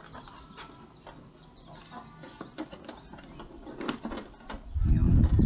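Light plastic clicks and knocks as the ink-tank unit of an Epson L120 printer is handled and pressed into place against the printer body. Near the end a much louder low rumble comes in.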